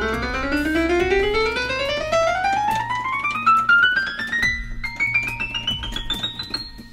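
Roland FP8 digital piano playing its piano voice: a fast run of single notes climbing steadily up the keyboard, one key after another, with a low note held underneath. It is a key-by-key test of the repaired keybed hammers, and the keys play without clunks.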